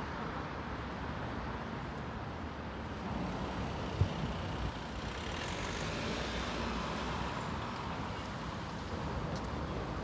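City street traffic: a steady hum of cars, with one car passing close, swelling and fading, about halfway through. A single short thump a little before it.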